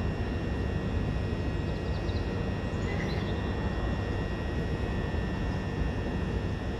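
Electric multiple-unit train standing at the platform with its doors closed: a steady hum and rumble with several faint, steady high-pitched whining tones over it.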